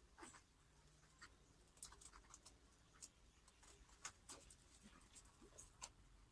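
Near silence with faint, scattered small clicks and scratches, a few every second.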